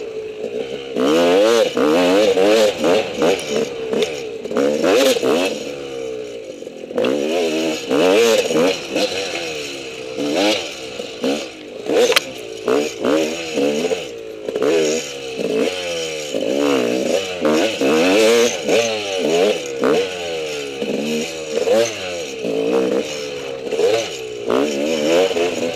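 Enduro dirt bike engine revving up and falling back again and again as the throttle is worked along a tight woods trail. Knocks and rattles come from the bike over the rough ground.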